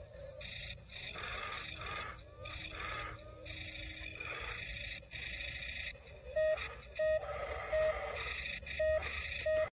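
Electronic sound effects from a remote-control toy play in choppy bursts, followed by five short, loud beeps at one pitch in the second half.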